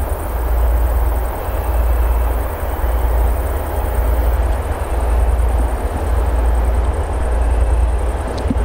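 A 2M62U two-section diesel locomotive's two-stroke diesel engines work under load as it hauls an approaching freight train. They make a deep, loud rumble that swells and fades roughly once a second.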